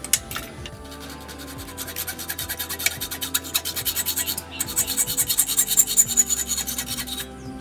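Hacksaw cutting a thin steel rod held in a bench vise, with fast, even back-and-forth strokes that grow louder and brighter in the second half, pausing briefly about four and a half seconds in. A hammer tap on the rod comes at the very start.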